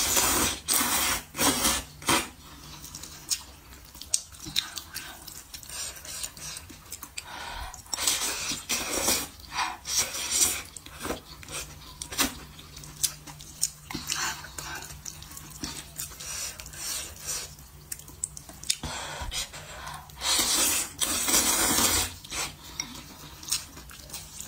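Wide hand-made noodles in soup slurped in repeated bursts, the longest near the end, with chewing in between.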